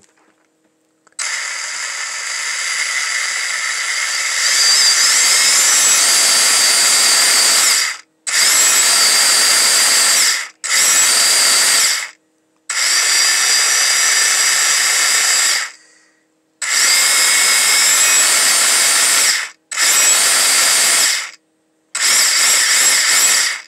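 WPL D12 RC truck's electric motor and gear transmission whining as the throttle is worked, in about seven runs of a few seconds each that start and stop abruptly. The first run starts softer and gets louder about four seconds in.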